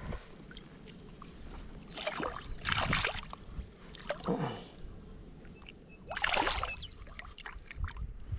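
Water splashing and sloshing in about four short bursts as a caught bass is let go back into the water.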